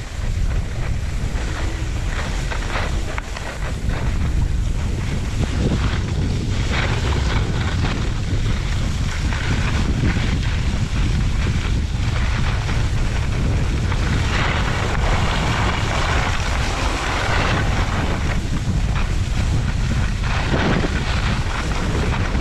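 Wind buffeting a GoPro action camera's microphone during a downhill ski run, a steady low rumble, with the hiss and scrape of skis sliding over packed, tracked snow that grows louder in stretches.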